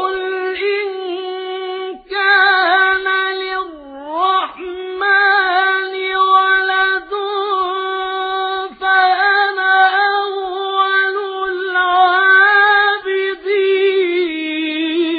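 A male Quran reciter's voice in melodic recitation, drawing out long ornamented notes in a high register with short breaks between phrases. The pitch sinks near the end of the phrase.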